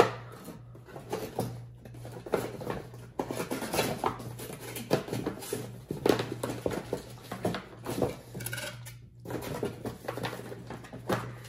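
Cardboard camera box being opened and handled: flaps lifted and the inner cardboard tray pulled out, with a run of irregular taps, scrapes and rustles.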